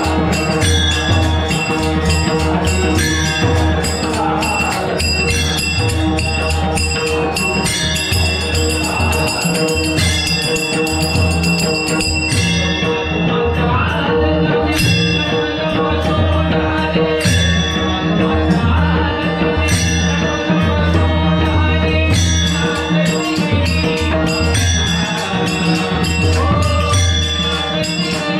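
Dindi bhajan: voices chanting a devotional song to a harmonium's held notes, a barrel drum's beat and small brass hand cymbals (taal) clashing in a steady rhythm.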